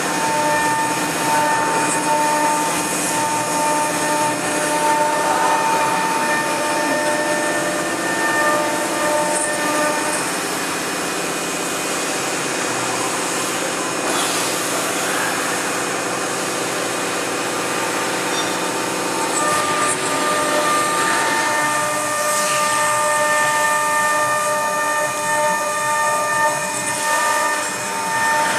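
Stone CNC router spindle running steadily with a whine of several steady tones as its tapered engraving bit cuts into a water-cooled marble slab, over a continuous hiss of cutting noise.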